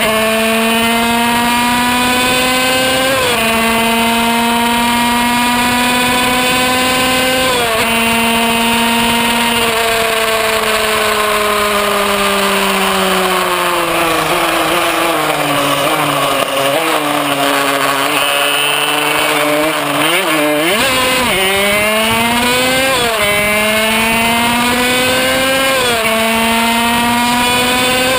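Kreidler Van Veen 50cc two-stroke racing engine at high revs, pitch climbing in each gear and dropping sharply at each upshift, about three and eight seconds in. Through the middle the revs fall away as the bike slows, with short throttle blips on the downshifts, then it climbs back up through two more upshifts near the end, with wind rushing past.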